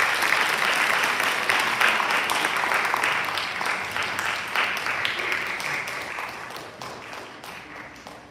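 Audience applauding, the clapping fading over the last few seconds and thinning to a few scattered claps.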